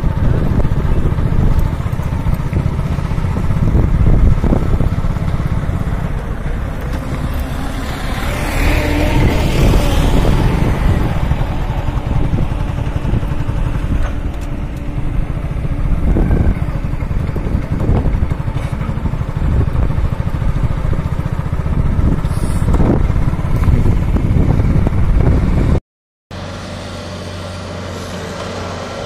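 Heavy machinery and vehicle engines running: a steady low rumble, with a hissing swell about eight to ten seconds in and a few sharp knocks later. Near the end the sound cuts out for a moment and returns as a quieter, even engine hum.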